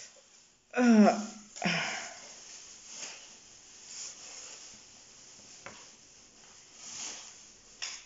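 A woman's brief wordless vocal sound about a second in, falling in pitch, followed by a breathy exhale. After that come a few quiet breaths through the nose and a small click.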